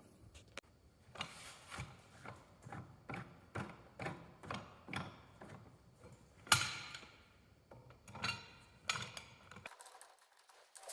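Ratchet wrench clicking in short strokes as it turns the forcing screw of a Posi Lock puller pulling a bulldozer's bull gear and rear final-drive bearing, with one sharp loud knock about six and a half seconds in.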